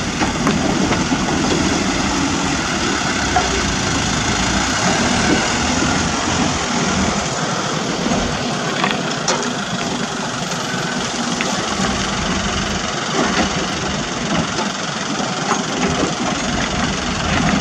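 Heavy diesel engines running steadily: a CAT 320D2 hydraulic excavator working as it digs and loads dirt into a dump truck, with the trucks' engines idling alongside. A few short knocks sound partway through.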